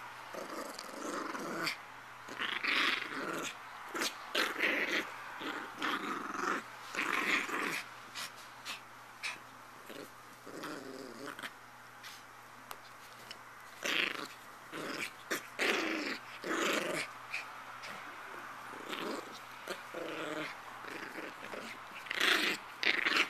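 Miniature pinscher puppy growling in repeated short bouts while playing with a toy, mixed with sharp clicks and taps.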